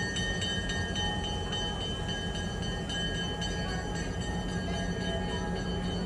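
Train running steadily: a constant rumble and hum with several steady high-pitched tones over it.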